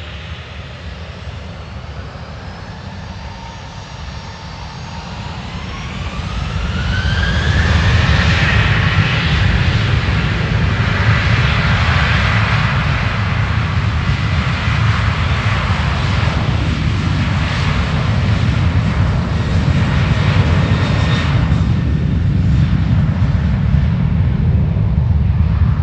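Boeing 737-800's CFM56 jet engines spooling up to take-off power with a rising whine, then a loud, steady jet noise from about seven seconds in as the aircraft accelerates down the runway.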